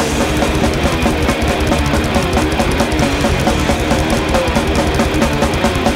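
Thrash metal played live: distorted electric guitars, bass and fast drumming, with quick, regular cymbal hits.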